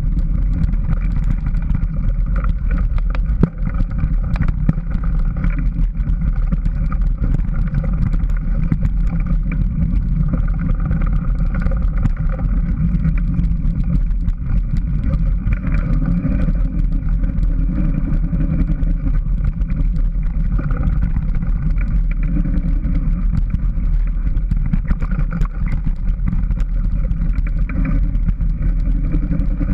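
Steady wind rush and rumble on the microphone of a camera riding on a moving mountain bike, with many small rattling clicks from the bike over the dirt trail.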